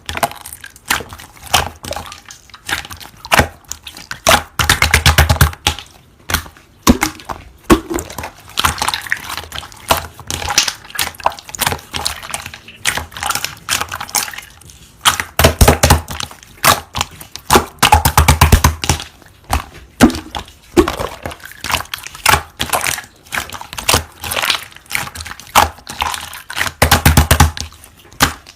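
Slime being played with: a steady run of sharp clicks and crackles, with short bursts of rapid clicking about five, sixteen, eighteen and twenty-seven seconds in.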